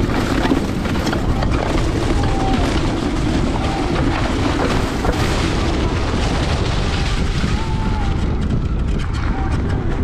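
Wind buffeting the microphone over the running noise of an Outrider Coyote electric four-wheel-drive ATV on the move, as a dense, steady rumble.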